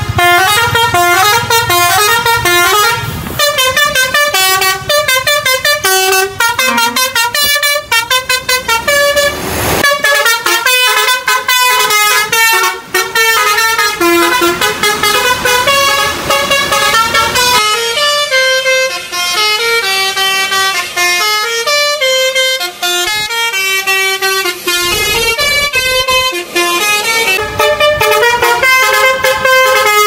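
Tour bus's basuri musical horn playing a fast melody of loud stepped notes, a multi-tone 'telolet' horn tune.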